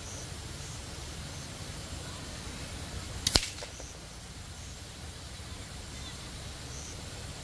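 A .177 G.Smith airgun slug striking at the target line of used clay lamps: one sharp crack a little over three seconds in, with a fainter tick just before it. Under it runs the steady rush of the nearby drain (nala).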